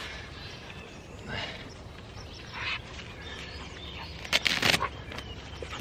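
Fabric flaps of a dog anxiety vest rustling as they are wrapped and pressed shut around a husky, with one louder, half-second tearing rasp about four and a half seconds in, typical of a hook-and-loop strap being pulled open and re-stuck.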